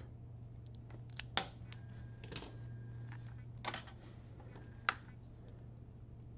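Hand wire stripper clicking and snipping on a small wire a few times, the sharpest snap a little before five seconds in, over a low steady hum.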